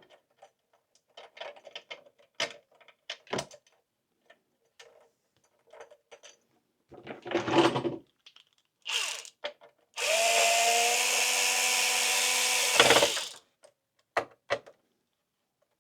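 Small clicks and taps of tools and parts being handled, then an electric screwdriver runs for about three seconds with a steady motor whine and stops with a sharp knock. It is driving in the screws that fasten the PS5's processor back down.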